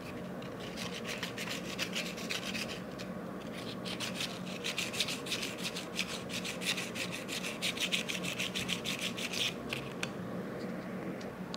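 Old scissors' bevelled blade edge rubbed quickly back and forth on sandpaper wrapped around a ruler, sharpening the dull blade: a fast run of rasping strokes, several a second, with a short pause about three seconds in. The strokes stop shortly before the end.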